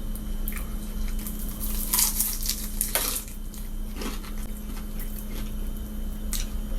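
Someone biting into and chewing crunchy breaded chicken wings, with a few separate crisp crunches spread out over several seconds, above a steady low hum.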